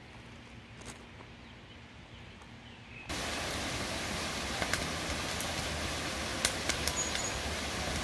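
Quiet evening outdoor ambience with a few faint clicks. About three seconds in, a sudden step up to a steady rushing noise with scattered sharp crackles: a wood fire burning high in a small portable fire pit.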